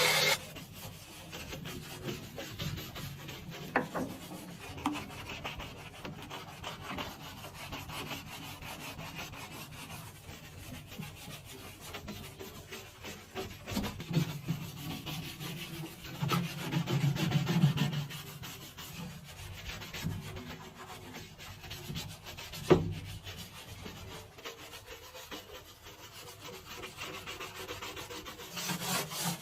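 Uneven rubbing and scrubbing, with scattered small clicks and knocks, a louder stretch of rubbing past the middle, and one sharp click a few seconds before the end.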